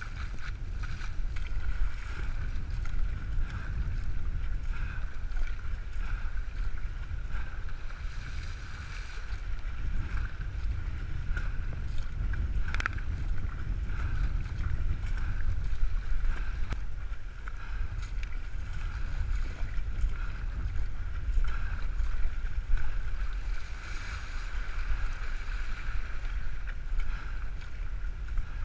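Wind buffeting the microphone and water rushing and splashing along the hull of a surfski being paddled through choppy water, with an uneven, gusty rumble. A single sharp knock about halfway through.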